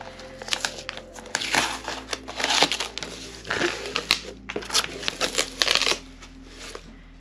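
Scissors cutting through the packing tape on a cardboard box, then the cardboard flaps pulled open: a busy run of clicks, snips and cardboard rustling that dies down near the end.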